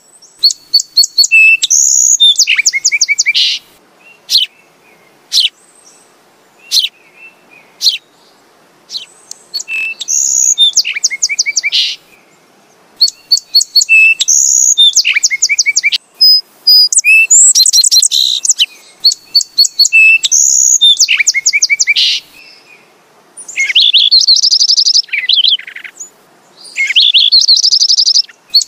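Sparrow chirping in bouts of quick, high chirps and short rapid trills. The bouts come every few seconds, with brief pauses between them.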